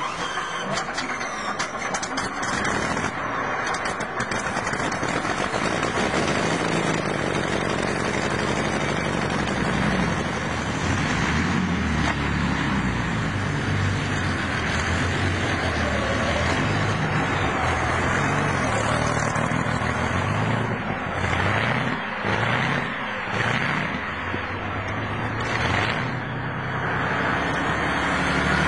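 Supercharged Rolls-Royce Merlin V12 aircraft engine catching and running loud. From about ten seconds in, its engine speed rises and falls repeatedly.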